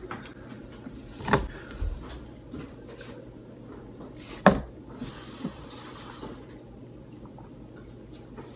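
Handling noise from a plastic cup on a kitchen counter: two sharp knocks, about a second and a half in and again at four and a half seconds, then a hiss lasting about a second.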